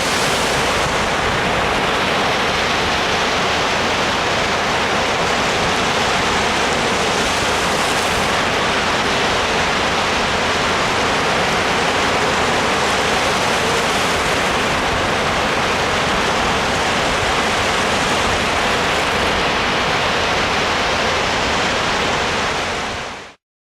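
Ocean surf washing onto a shore, heard as a steady, unbroken rushing with no single wave standing out. It fades out just before the end.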